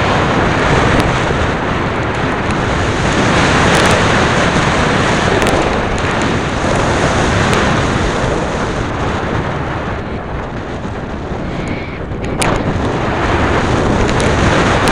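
Strong wind buffeting the microphone of a camera riding on a foam FPV model plane in flight: a loud, dense rushing noise that swells and eases with the gusts. A sharp knock comes about twelve seconds in.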